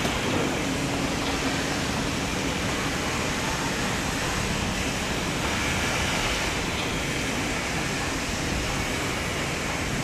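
EF65 electric locomotive hauling a freight train at very slow speed: a steady, even rumble with no distinct wheel clicks or horn.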